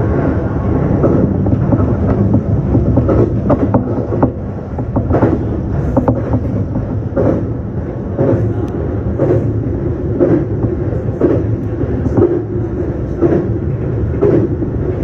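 Local passenger train running at speed, heard on board. There is a steady rumble, and the wheels clack over rail joints about once a second.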